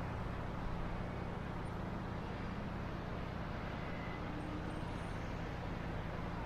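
Steady road traffic noise with a low, even engine hum.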